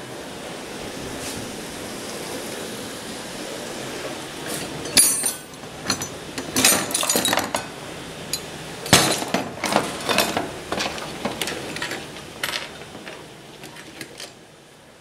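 Hand tools and other objects on a table clinking and clattering as they are handled and set down, a string of irregular sharp knocks and clinks after a few seconds of steady noise.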